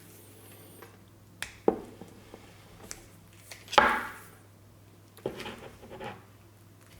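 Clicks and knocks of a plastic electrical plug being handled and worked at to pry it open: a few sharp clicks, the loudest a little under four seconds in, then some brief scraping.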